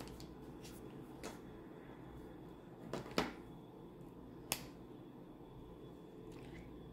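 Plastic felt-tip marker pens being handled on paper: a few light, sharp clicks and taps, two close together about three seconds in being the loudest, over faint room hiss.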